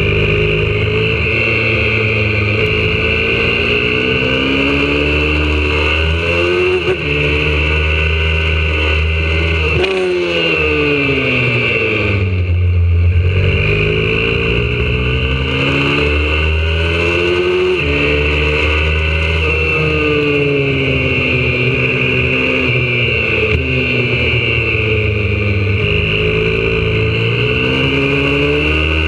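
YCF 125cc single-cylinder four-stroke pit bike engine at full throttle on track, its pitch climbing through each gear and dropping back at every upshift. About ten seconds in it winds down under braking into a corner, then climbs again through the gears.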